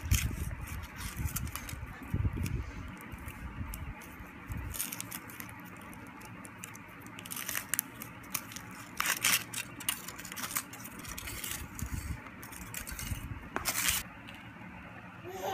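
Foil wrapper on a chocolate egg crinkling and tearing as it is peeled off by hand, in irregular crackles and rustles.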